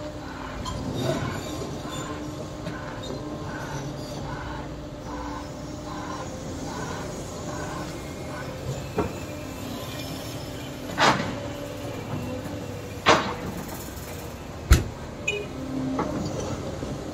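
Caterpillar tracked excavator with a tiltrotator working, its engine and hydraulics giving a steady hum. A pulsing sound repeats about twice a second through the first half. A few sharp knocks come in the second half, the loudest near the end.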